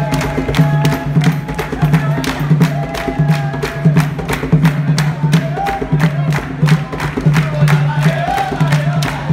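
Maculelê music: wooden sticks clacking together in a fast, steady rhythm over a drum, with voices singing.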